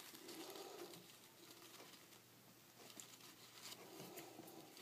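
Near silence: room tone, with a few faint ticks.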